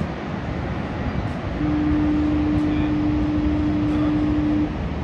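A tour boat's horn sounding one long steady low note for about three seconds, starting about a second and a half in, over the steady rush of the waterfall and wind on the microphone.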